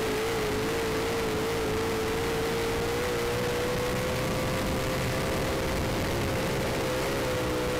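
Onboard sound of a 358 sprint car's small-block V8 running hard at high revs. Its pitch climbs gradually down the straight, then wavers slightly near the end.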